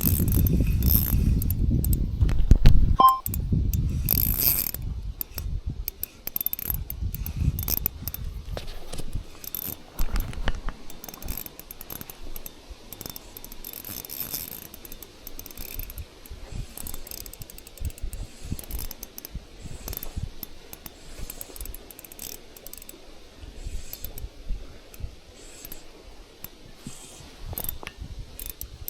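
Spinning reel being cranked, its gears clicking rapidly as line is wound in. Wind rumbles on the microphone in the first few seconds.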